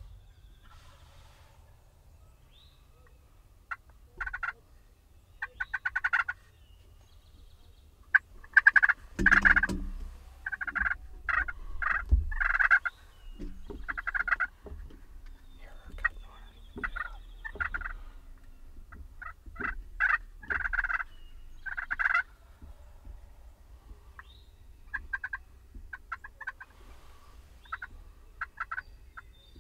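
Wild turkeys gobbling and turkey calls going back and forth in repeated short bursts, the loudest about nine seconds in.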